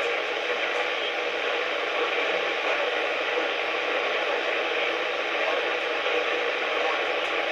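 Steady radio static hiss from a NOAA weather radio receiver, with no voice coming through.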